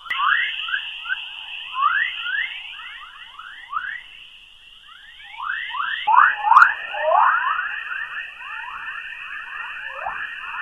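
Sonified space recording presented as a planet's sound: a steady high band of sound with a dense run of quick falling whistles, several a second. About six seconds in it switches to a slightly lower, busier stretch of the same kind of falling whistles.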